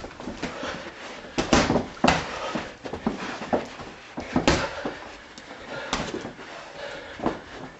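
Boxing punches landing and bodies bumping during a sparring bout: a string of irregular thuds and smacks, the loudest about one and a half to two seconds in and again about four and a half seconds in.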